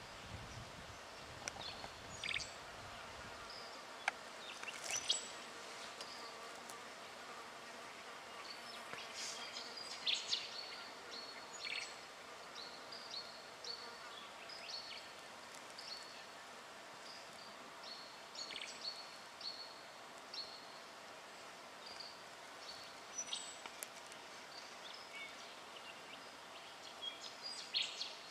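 Black-fronted dotterel giving short, high, clipped call notes, scattered singly and in small clusters, over a steady faint background hum.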